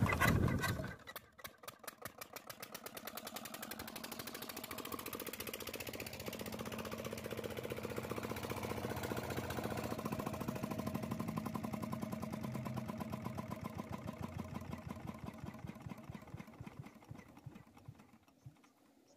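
Petter-type diesel engine running with a steady, even beat while it drives a belt-driven water pump, then fading away near the end.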